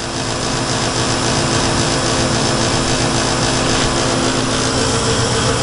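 Gas furnace running at its steady load after start-up, with burners lit and the indoor blower and inducer motors giving a steady hum and whir. The tone changes slightly near the end.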